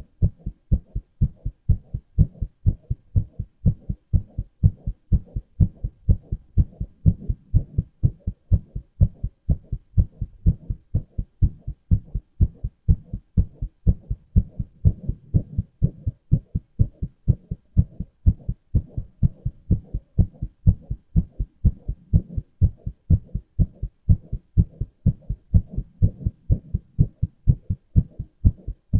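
A man's heartbeat beating steadily: even, regular low thumps, recorded up close.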